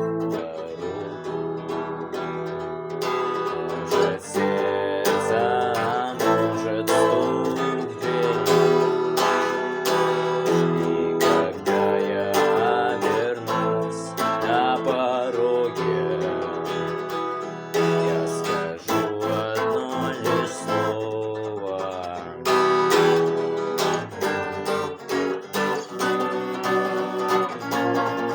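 Electric guitar playing an instrumental lead line with string bends and vibrato over a backing track with bass and drums.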